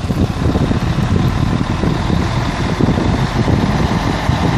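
Mercedes-Benz Axor dump truck's diesel engine running steadily while its tipper body is raised and the load of earth slides out the back.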